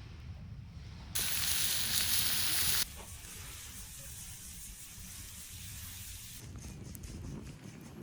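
Food sizzling over an open fire: a loud hiss that starts abruptly about a second in and cuts off after about two seconds, with a low rumble underneath and a few faint crackles near the end.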